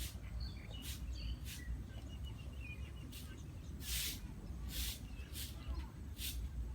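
Dog chewing food: irregular short crunching or smacking sounds, roughly one every half second to second, with faint bird chirps in the background.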